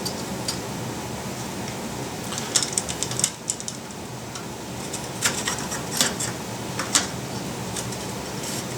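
A scattering of short clicks and clinks from cart parts and hardware being handled during assembly, a cluster about two and a half seconds in, then single clicks a few seconds later, over a steady background hum.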